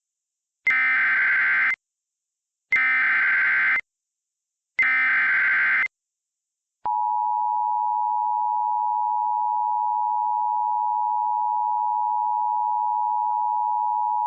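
Emergency Alert System SAME header: three bursts of buzzy digital data tones, each about a second long, with brief silences between them. About seven seconds in, the steady two-tone EAS attention signal (853 and 960 Hz together) begins.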